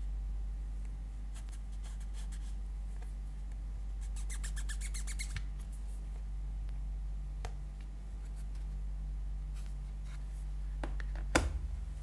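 Hands handling and flexing a soft clear silicone phone case, with small plastic clicks and a quick run of rapid ticking rubs about four seconds in. Near the end the case is set down on a hard table with one sharp tap. A steady low hum runs underneath.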